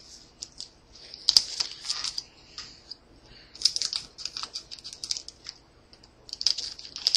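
Hands handling a trading-card booster pack and its cards: three bursts of quick crackly clicks and rustles, like a foil wrapper crinkling and cards being slid and flipped.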